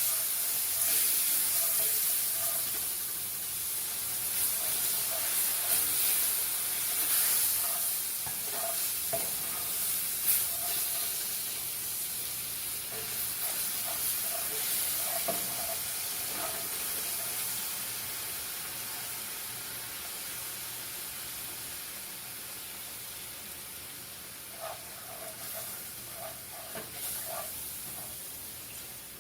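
Milk sizzling as it is added to a hot oil-and-flour roux in a cast iron skillet, with a spatula scraping and stirring the pan. The sizzle gradually dies down as the milk cools the pan.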